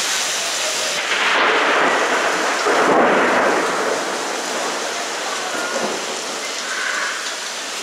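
Heavy rain pouring steadily during a thunderstorm, with a louder rushing swell that builds from about a second in, peaks near three seconds and fades out.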